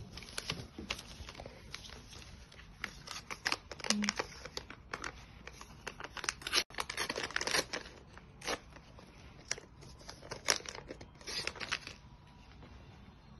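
Plastic-and-paper sterile peel pouches crinkling and tearing as they are handled and peeled open, in irregular bursts of crackles and rustles.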